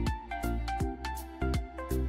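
Background music with a steady beat: bass pulses about twice a second under a melody of short notes.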